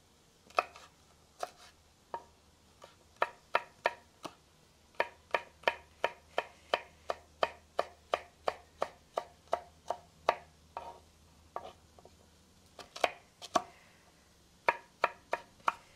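Kitchen knife chopping a serrano chile on a wooden cutting board: sharp taps of the blade on the board. First a few single taps, then a steady run of about three taps a second, a short pause, and more chopping near the end.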